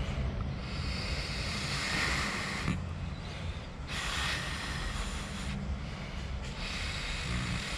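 Breath blown hard into the inlet of a mini 220 V flow-sensor booster pump in several long puffs. The airflow trips the pump's flow sensor, and its motor runs underneath with a quiet, steady low hum.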